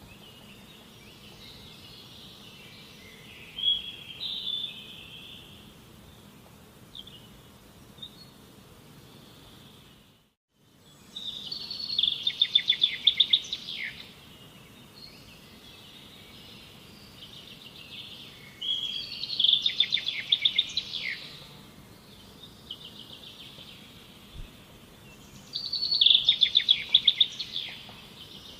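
A songbird singing: a phrase of chirps ending in a fast trill, repeated about every seven seconds, with a softer phrase near the start. Under it runs a steady low outdoor hiss, which cuts out briefly about ten seconds in.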